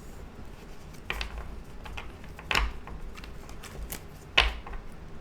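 Tarot cards being handled on a table: three short, sharp card sounds about a second and a half apart.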